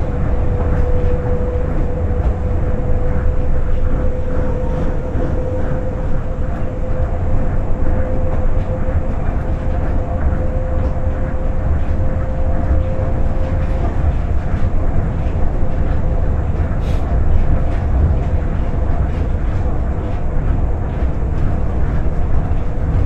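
Tokyo Monorail train running, heard from inside the car: a loud, steady low rumble of the rubber-tyred car on its concrete guideway beam, with a steady whine that fades out a little past halfway.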